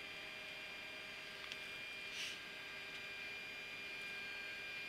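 Steady low flight-deck hum of a Boeing 737-800 on the ground, with several faint steady tones over a light hiss, a small tick about a second and a half in and a soft brief hiss about two seconds in.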